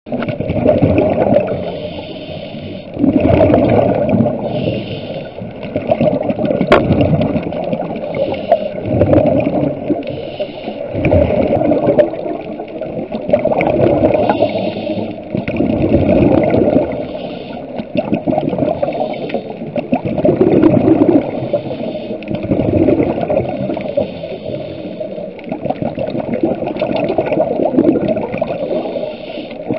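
Scuba diver's breathing heard underwater: exhaled bubbles from the regulator gurgling in repeated surges every two to three seconds, with a fainter hiss coming and going between them.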